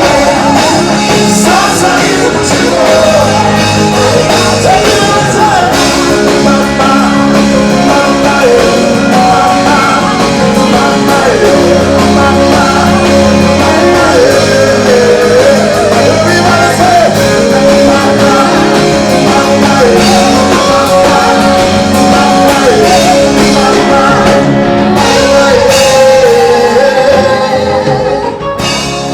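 Live gospel music with a singer and a band, guitar and bass among the instruments, in a church hall.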